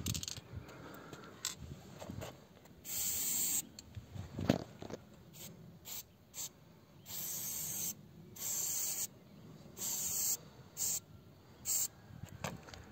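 Aerosol spray paint can hissing in a series of short bursts, each from a fraction of a second to about a second long, with brief pauses between them. A dull thump comes about four and a half seconds in.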